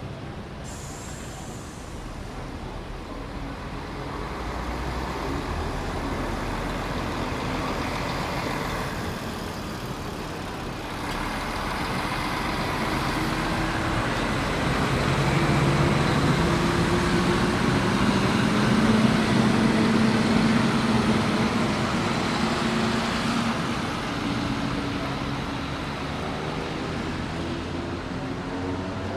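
City buses running past on the road. One bus pulls away with a rising engine note that is loudest about two-thirds of the way through, over steady traffic noise.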